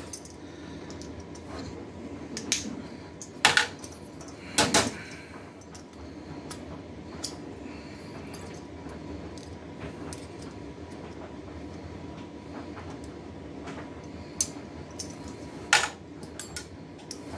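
Side cutters clicking and snapping against the split pins of an aluminium CPU heatsink as the pins are worked off, a few sharp metallic clicks with the loudest about three and a half and five seconds in and again near the end.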